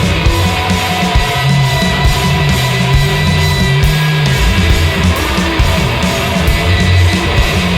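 Rock band playing an instrumental passage live: heavy, distorted guitar over bass and a steady drum beat, with no singing.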